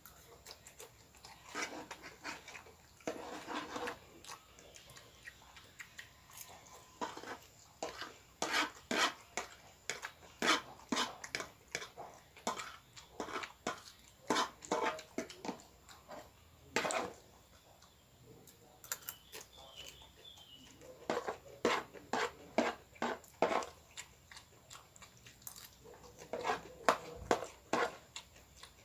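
Close-up eating sounds: wet chewing, smacking and slurping of fried noodles, in clusters with short pauses, with an occasional light clink of a fork against the plate.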